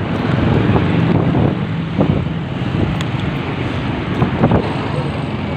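Motorcycle engine running steadily at cruising speed, with wind noise on the microphone.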